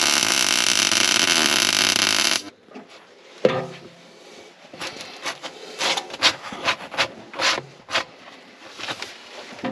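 Metal repair work on a broken steel excavator bucket: a loud steady noise that cuts off abruptly about two and a half seconds in, then a string of short, sharp taps and scrapes on the steel.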